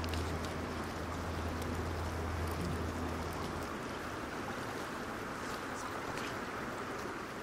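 Rushing river water: a steady, even rush. A low hum runs underneath and stops about halfway through.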